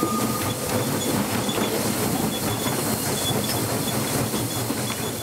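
Steam locomotive running, heard from inside its cab: a steady hiss of steam mixed with rattling and clanking from the running gear and wheels on the rails.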